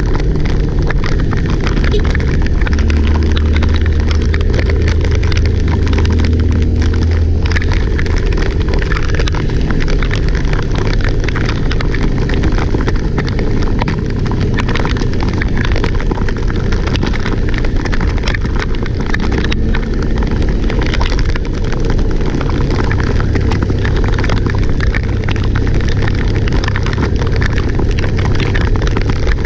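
Loud, steady rush of typhoon wind and rain, with a low rumble underneath.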